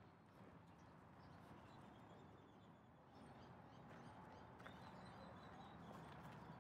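Near silence: a faint outdoor background hiss, with a few faint high chirps from about three seconds in.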